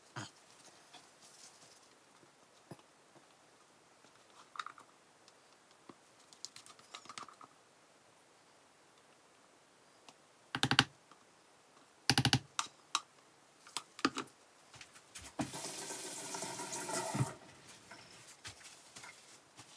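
Light taps and clatter of plastic measuring cups and a spatula handled on a counter during soap pouring, with two sharp louder knocks a little past halfway. Near the end comes a rough rasping noise lasting about two seconds.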